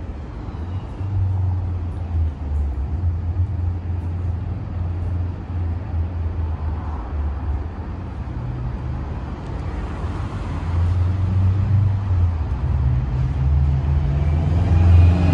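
Diesel locomotive engines running with a deep, steady drone, growing louder toward the end as the train draws nearer.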